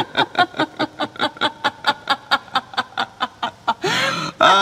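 A man and a woman laughing together in rapid, even pulses of about eight a second, with a longer, louder cry of laughter near the end.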